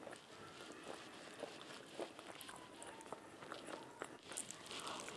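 Faint chewing and mouth sounds while eating, with scattered light clicks of a fork working through food on a plate.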